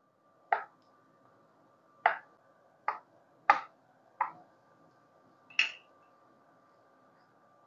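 Kitchen knife slicing through a block of feta cheese and knocking on a plastic cutting board: about six short, sharp knocks spread out unevenly, over a faint steady high hum.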